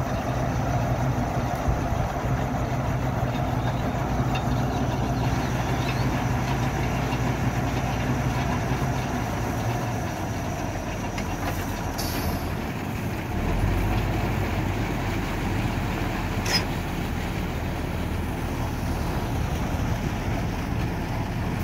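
Engine of a tubewell boring rig running steadily while it drills and pumps water. The hum shifts lower about thirteen seconds in, with a sharp click a few seconds later.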